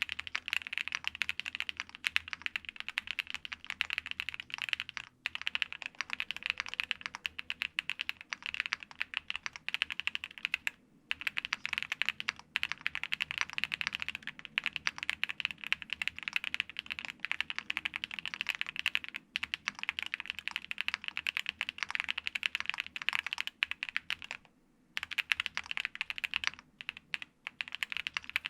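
Fast typing on a Qwertykeys QK65 gasket-mount custom keyboard with factory-lubed Angry Miao Icy Silver linear switches, lubed OWLstab stabilizers and ABS keycaps: a dense, bubbly stream of keystrokes with brief pauses about 11 and 25 seconds in.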